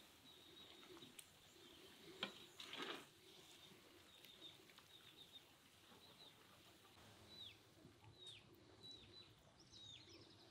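Faint outdoor ambience with small birds chirping in short, down-slurred calls, most of them in the second half. A couple of brief soft clicks or scrapes come about two to three seconds in.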